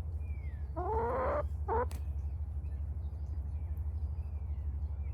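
Wyandotte hen giving a drawn-out, wavering call about a second in, then a shorter call, followed by a sharp click. A steady low hum runs underneath.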